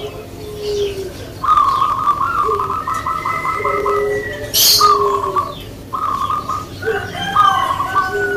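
Caged zebra doves (perkutut) cooing: repeated rapid, stuttering phrases, answered by lower, softer coos from a second dove. A short, sharp high-pitched sound about halfway through.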